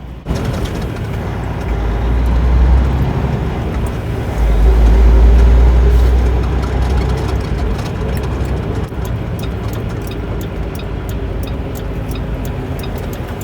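Semi-truck running at highway speed, heard inside the cab: steady engine drone and road noise, with a deep rumble that swells up twice in the first half.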